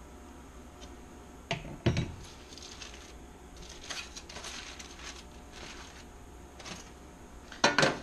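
Kitchen dishes and utensils clattering: a few scattered knocks, then a quick cluster of louder clacks near the end.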